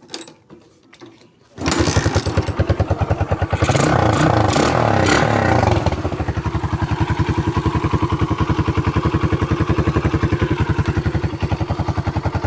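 A Kawasaki Barako 175's single-cylinder four-stroke engine starts about one and a half seconds in, catching at once on a cold morning start. It runs faster for a few seconds, then settles into a steady idle with an even, rapid beat. The easy start comes from a larger slow jet, No. 38 in place of the stock No. 35, fitted in the carburettor.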